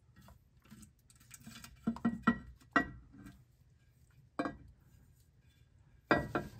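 Metal differential cover of a Dana M60 front axle knocking and clinking as it is worked off the axle by hand: several sharp knocks spread through, some with a short metallic ring.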